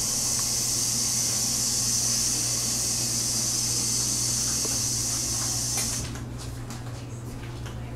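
A steady high hiss over a low hum; the hiss cuts off suddenly about six seconds in, leaving the hum and a few faint clicks.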